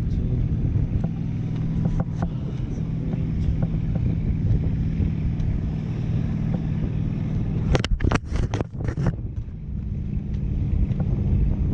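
Wind rushing over the microphone of a camera carried aloft on a parasail, a steady low rumble with a hum under it. About eight seconds in comes a quick cluster of sharp knocks.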